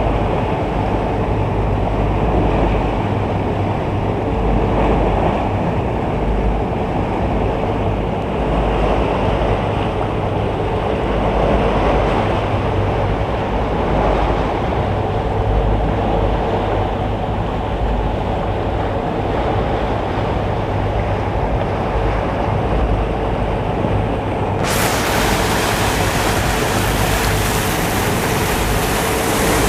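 Steady rush of sea water and wind on the microphone, over a constant low mechanical hum like a boat engine's. About 25 seconds in, the sound suddenly turns brighter and hissier.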